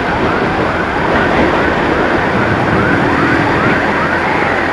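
Emergency siren sounding in quick rising sweeps, about two a second, over steady wind and tyre noise from a motorcycle riding on a wet road.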